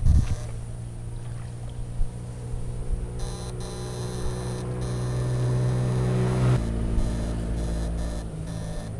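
A steady, pitched machine hum that grows louder over a few seconds, then drops abruptly to a lower, quieter tone about six and a half seconds in.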